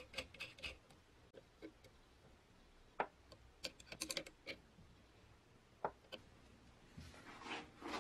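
Small open-end wrench working a nut and bolt, giving a few sharp metallic clicks: a loud one about three seconds in, a quick cluster around four seconds, another near six seconds. A brief scraping rustle follows near the end.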